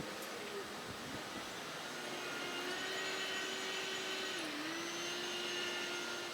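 Jet airliner engines running with a steady rushing noise and a whine that grows louder about two seconds in, dipping briefly in pitch and then holding steady.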